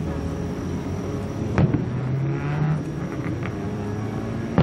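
Aerial firework shells bursting over the water: one sharp bang about one and a half seconds in and another at the very end, over a steady low hum.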